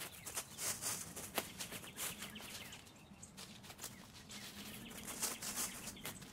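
Camouflage tent fabric rustling and flapping in short bursts as the tent is lifted, shaken out and spread, with dry leaf litter crackling underfoot. There is a sharp tick about a second and a half in and a quieter spell midway.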